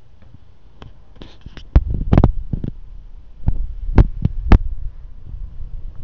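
Irregular handling noise on a handheld camera: about nine knocks and low thumps, the loudest near two seconds and four and a half seconds in.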